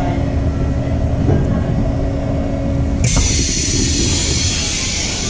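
A 651-series train standing at the platform, with a steady low rumble and hum. About three seconds in, a loud, steady hiss sets in suddenly.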